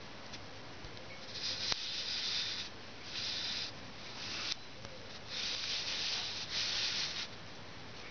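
Young puppies shifting against a fleece blanket close to the microphone: five separate bursts of soft rubbing rustle, with one light click about two seconds in.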